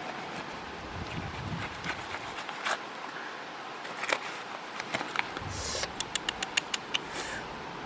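A knife cutting through a ripe jackfruit, with scattered scraping ticks as the blade works through the rind and flesh. Near the end, a rustle and a quick run of sharp clicks.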